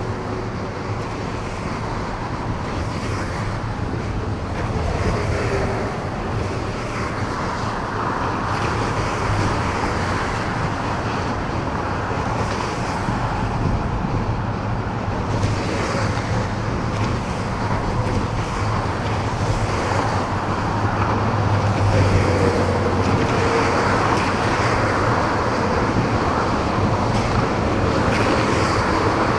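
Steady low engine drone of a passing motorised inland cargo barge, over the rush of its bow wave and wind buffeting the microphone. The drone grows louder a little past the middle as the barge passes.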